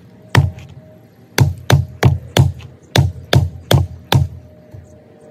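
Nine sharp knocks, one and then eight more in quick succession. A brick held in the hand is pounding the back of a Skachet's hatchet blade to drive it down into a small upright log and split it.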